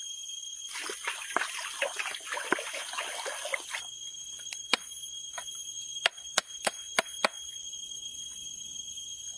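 Crackling and sizzling over the wood fire under a wok for about three seconds, then a handful of sharp knocks like a knife on a wooden cutting board, the loudest cluster near the end. A steady high-pitched whine runs underneath.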